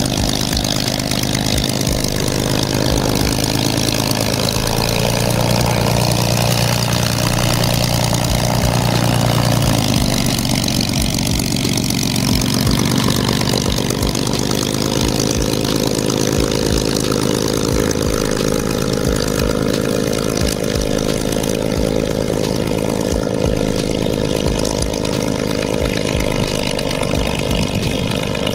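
Supermarine Spitfire Mk IX's Rolls-Royce Merlin V12 running at idle on the ground, a steady engine note that shifts about ten seconds in.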